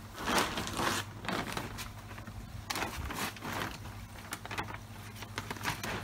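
Irregular crackling and rustling of plastic bags of filter media being handled, over the steady low hum of the running pond filter pumps.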